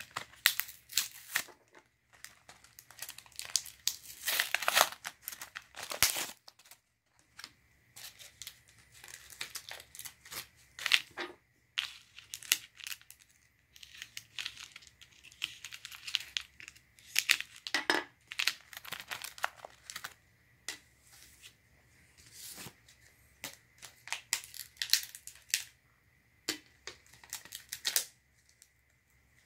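Cardboard-and-plastic blister packaging of HO-scale LED lamp posts being torn and pried open by hand: irregular bouts of tearing and crinkling with short pauses between.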